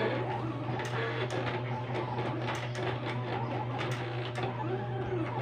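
Silhouette Cameo cutting plotter cutting a vinyl sticker: its motors whine in pitches that rise and fall as the blade carriage and rollers move, over a steady low hum.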